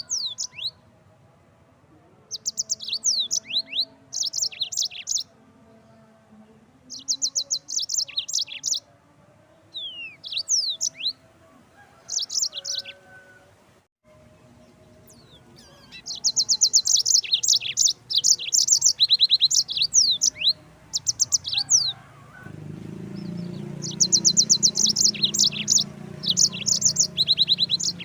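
Yellow-fronted canary (Mozambique canary) singing: bursts of rapid trilled high notes mixed with short slurred whistles, phrase after phrase with brief pauses between. A low hum joins the background near the end.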